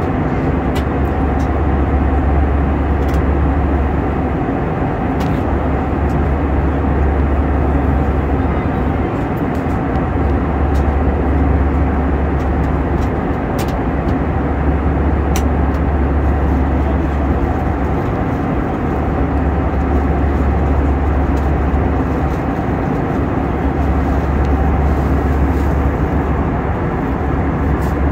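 Steady airliner cabin noise at cruise: the turbofan engines and rushing airflow, heard from a window seat as a loud, even, deep drone with a steady hum over it.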